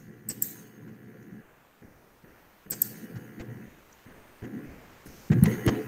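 Scattered faint clicks and taps, such as a computer mouse or keyboard being used, over low background noise from an open microphone on a video call, with a louder knock near the end.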